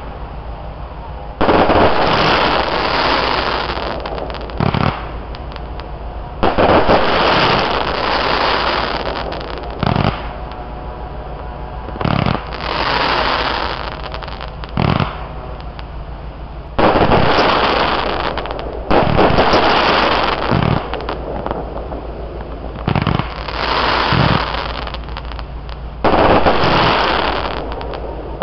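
Fireworks going off: a run of about a dozen sharp bangs. Several of them trail off over two or three seconds, and others are short single reports.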